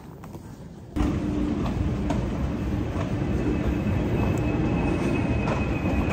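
A second of quiet indoor room tone, then loud city street noise starts suddenly about a second in: a heavy traffic rumble with a faint steady whine running through it.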